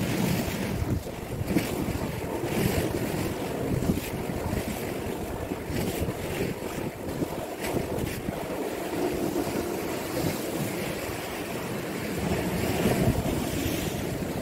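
Wind buffeting the microphone in uneven gusts, over waves breaking and washing against a sloped concrete seawall.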